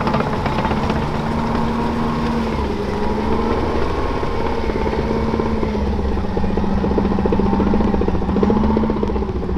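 M113 armoured personnel carrier driving by, its two-stroke Detroit Diesel V6 engine running steadily with small rises and falls in pitch. The steel tracks clatter rhythmically under it.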